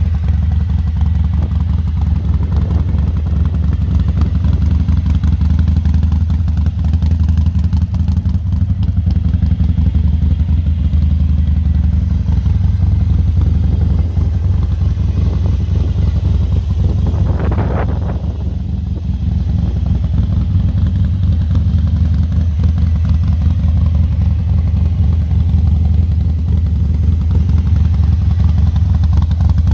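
2017 Harley-Davidson XL1200C Sportster 1200 Custom's air-cooled 1200 cc Evolution V-twin idling steadily.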